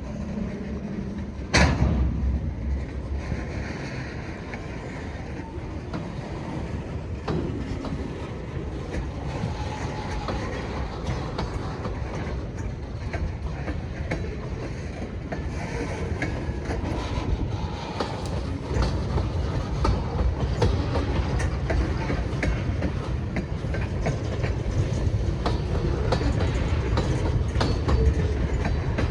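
Freight cars rolling along the track, a steady rumble with wheels clicking over the rail joints, growing louder toward the end. A single sharp bang sounds about a second and a half in.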